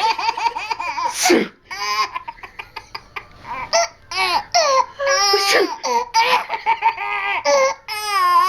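A child laughing hysterically: high-pitched, wavering bursts of laughter broken by runs of rapid breathy pulses, with one short noisy burst about a second in.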